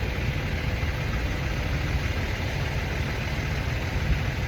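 Semi truck's diesel engine idling with a steady, unbroken rumble.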